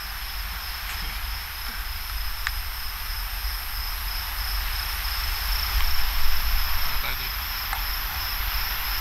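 Crickets chirping in a steady, high-pitched chorus, with a low rumble underneath.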